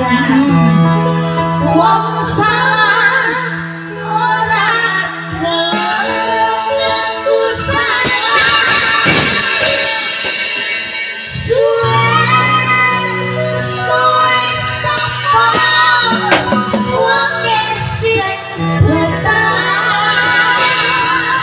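Gondang-style music with a woman singing a melody over held bass notes that change every few seconds.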